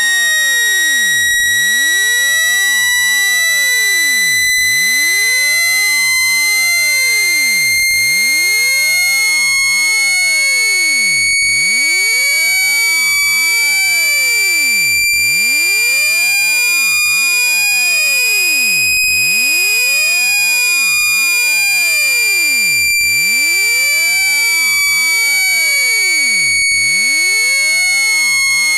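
Generated speaker-cleaning tone, played to shake sand and dust out of a speaker: one loud, continuous, high-pitched electronic tone with overtones. It glides slowly upward in pitch for about two-thirds of the time, then eases back down.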